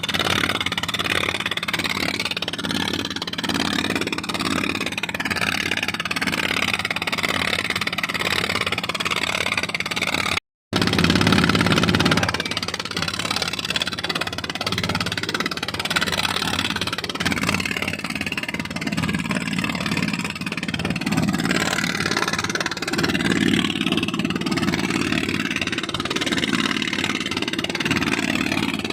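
A small engine running steadily under a wash of noise. The sound cuts out for a moment about ten seconds in, then comes back louder for a second or two before settling.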